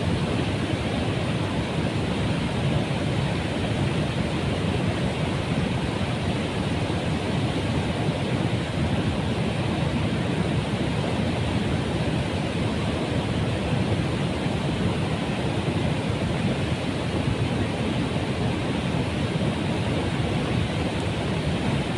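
Water pouring over a rubber dam's weir and churning in the river below: a steady, unbroken rush, deepest in tone.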